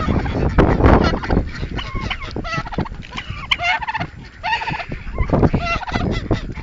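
A flock of farmyard fowl (chickens, geese and ducks) calling over one another in many short, rising-and-falling calls, with a loud scuffling noise about a second in.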